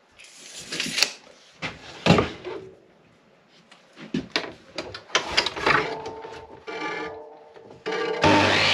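Thin wooden strips handled on a mitre saw's bench: irregular knocks, clatter and rubbing as they are slid and set against the fence. Near the end the mitre saw's motor starts with a sudden loud, steady whirr that keeps going.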